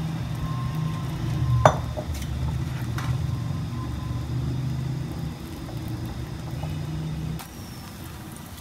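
Egg frying in oil in a non-stick pan under a steady low rumble, with a spatula knocking sharply against the pan about two seconds in and again more lightly a second later. The rumble drops away near the end.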